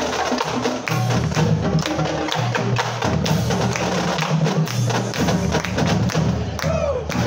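Massed marching drumlines playing a drum cadence: a steady, busy beat of snares with sharp stick and rim clicks, over pitched bass drums that change note every half second or so.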